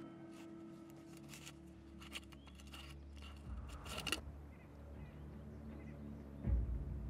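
Lid being twisted off a glass mason jar: a run of small clicks and scrapes, densest about three and a half to four seconds in. A low thud near the end is the loudest sound.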